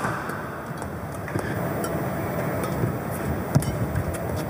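Badminton rally: a few sharp racket strikes on the shuttlecock over a steady low arena rumble, the loudest hit about three and a half seconds in.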